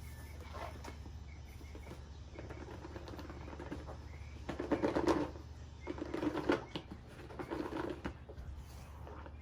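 A product box and its padding being handled and opened: irregular bursts of rustling and scraping, loudest about five seconds in, over a steady low hum.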